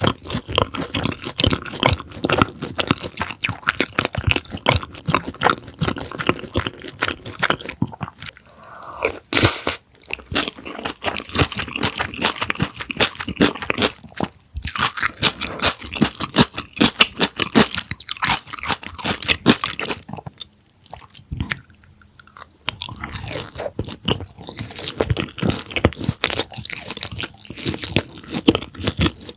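Close-miked eating of a deep-fried breaded pork cutlet: the crisp breading crunches loudly with each bite and chew, with a few brief pauses between mouthfuls.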